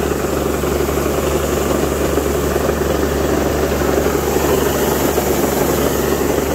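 Combine harvester's engine running steadily at load while it unloads its grain tank of paddy into a tractor trolley.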